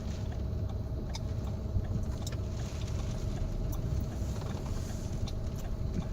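Car running, heard from inside the cabin: a steady low rumble of engine and road, with a faint steady hum and a few light clicks.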